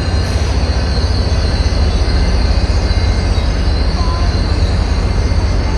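Train running past: a loud, steady rumble with thin, high steady squealing tones from the wheels on the rails.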